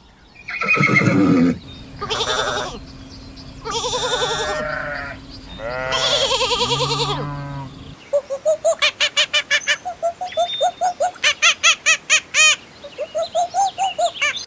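Goat bleating: four long wavering bleats. About eight seconds in, a fast run of short repeated calls takes over, about four or five a second.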